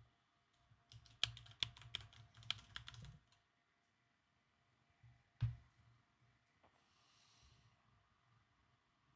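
Faint computer keyboard keystrokes: a quick run of about a dozen taps as a login password is typed and entered, then a single firmer keystroke a couple of seconds later.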